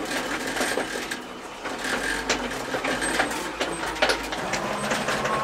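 1981 GMC C7000 dump truck heard from inside the cab: the engine running, with a steady stream of clicks and rattles from the cab.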